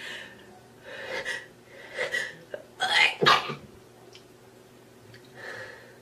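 A woman sneezing: a few short hitching inhales about a second apart build up to one sharp sneeze about three seconds in, followed by a softer breath.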